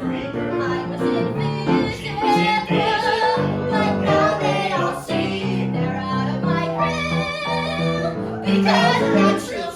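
Musical-theatre song: a singing voice holding long notes with vibrato over instrumental accompaniment.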